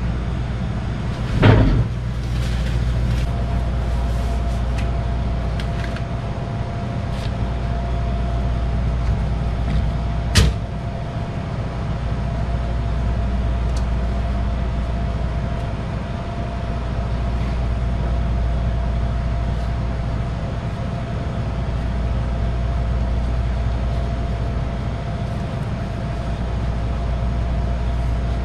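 Steady low mechanical hum of commercial kitchen machinery, with a thin steady whine joining in a few seconds in. A sharp knock comes near the start and another about ten seconds in, from handling pans and utensils on a steel counter.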